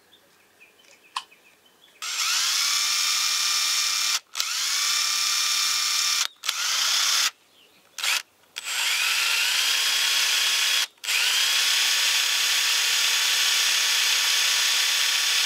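Electric drill spinning the input shaft of a kei truck's odometer unit to test the repaired counter, run in several bursts with brief stops. Each run starts with a rising whine as the motor spins up, then holds steady.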